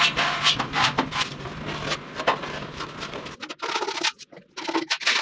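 Repeated rubbing strokes on a vintage Vespa's bare steel side panel over a low steady hum. About three and a half seconds in, these give way to sharper, separate scrapes of a spreader working body filler across the panel.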